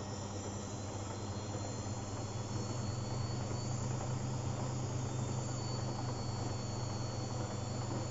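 Beko front-loading washing machine running, its drum motor giving a steady hum and a thin high whine that grows a little louder about two and a half seconds in, as the drum turns trying to balance a load that is unbalanced for the spin.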